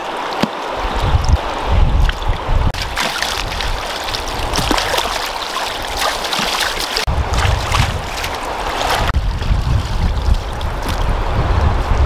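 A fast-flowing river rushing steadily, with splashing as animal lungs are swished and rinsed by hand in the water, busiest in the middle of the stretch.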